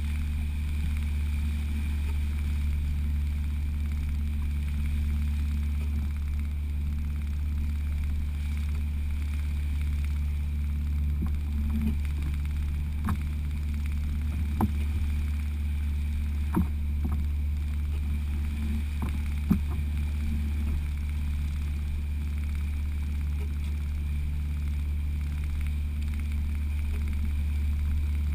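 Outboard motor of a small open fishing boat running steadily under way, a constant low drone with water rushing past the hull. A few short knocks come in the middle stretch.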